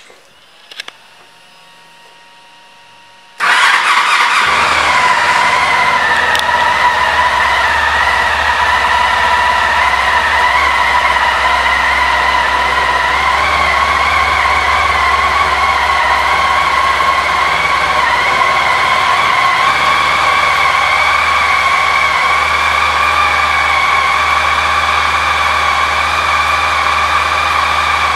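Honda ST1300's V4 engine starting up suddenly about three and a half seconds in, after a few faint clicks, then idling steadily. Its pitch creeps up slightly toward the end.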